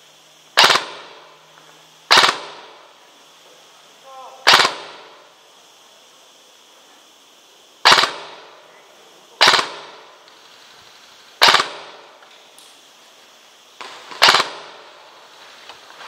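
Airsoft gun firing single shots: seven sharp cracks at uneven gaps of about one and a half to three and a half seconds. Each crack is loud and trails off in a short echo.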